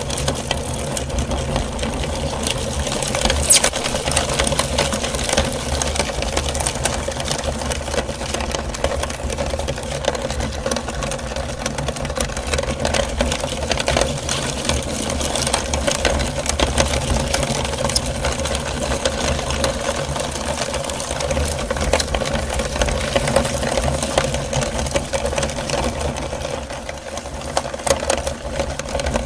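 Electric meat grinder running steadily: a constant motor hum and whine with dense, irregular clicking and crackling as bouncy rubber balls are forced through it.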